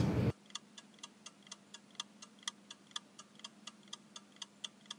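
Countdown-timer sound effect: faint, even clock-like ticks about four times a second, marking the answer time in a quiz.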